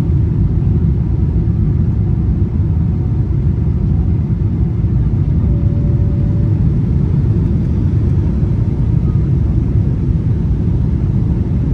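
Jet airliner cabin noise during the initial climb after takeoff: the engines and rushing air make a steady, deep rumble.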